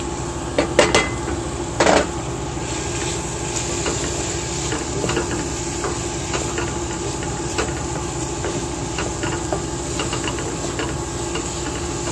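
A utensil stirring spices in a pan of frying onions, knocking sharply against the pan a few times early on, then scraping and tapping lightly, over a steady hum.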